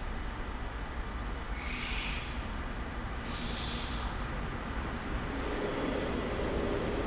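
Dutch NS passenger train approaching a level crossing, its rumble building over the last couple of seconds. Two short bursts of hiss come earlier, about a second and a half and three seconds in.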